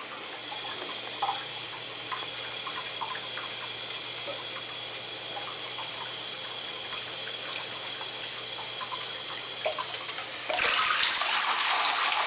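Water running into a bathtub with small splashes as a hand works water through a small dog's wet coat. The running water gets louder about ten and a half seconds in.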